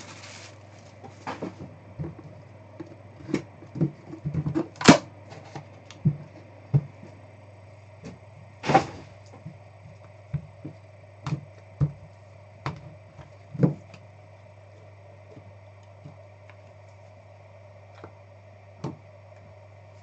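A trading-card hobby box and its cards being handled on a table: scattered light taps and knocks, two louder ones about five and nine seconds in, over a steady low hum.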